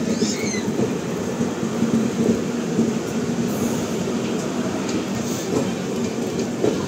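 Air-conditioned chair-car coaches of the Kanpur–New Delhi Shatabdi Express rolling past close by: a steady rumble of steel wheels on the rails with a low hum and a few clicks over the rail joints.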